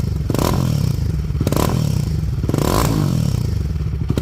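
Royal Enfield Guerrilla 450's single-cylinder engine running loud through a modified exhaust, the throttle blipped sharply about once a second, four times.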